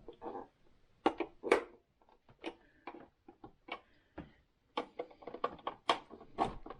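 Irregular clicks and light knocks of sewing machine parts being handled and worked at, a dozen or more sharp taps with short gaps between them.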